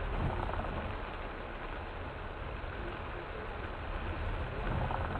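Steady rumble of a car engine and road noise mixed with the hiss of heavy rain.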